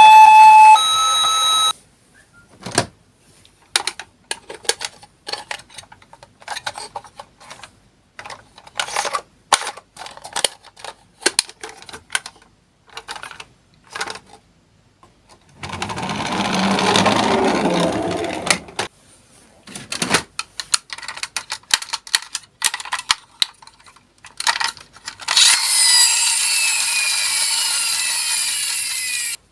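Scattered light plastic clicks and clatter from toy minicars being handled, with about three seconds of a small toy car rolling midway. Near the end comes a steady electronic tone with falling pitch glides.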